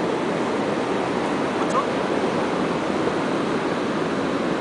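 Ocean surf breaking on the shore: a steady, unbroken rush of waves.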